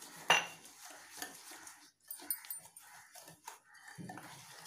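Semolina and yogurt being mixed by hand in a glass bowl: irregular short, soft wet sounds of fingers working the thick batter. There is a sharp knock against the bowl just after the start.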